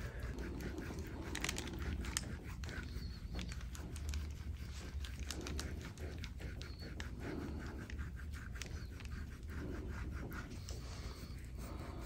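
Soft, slow breaths recurring every second or two, with faint rubbing and small clicks of hands working on skin over a low steady hum.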